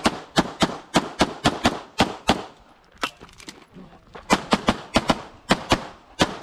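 Beretta 92X Performance 9mm pistol firing rapid strings of about twenty shots, roughly a quarter second apart, with short breaks about two and a half and four seconds in as the shooter moves between target arrays at match pace.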